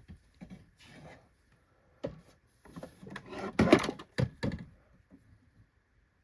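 Hard plastic vacuum parts knocking and clattering as they are handled: a sharp knock about two seconds in, then a cluster of knocks and rattles between about three and four and a half seconds.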